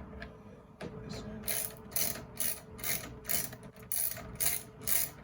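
Hand ratchet wrench being worked back and forth on a fastener, its pawl clicking in short bursts about twice a second from about a second and a half in.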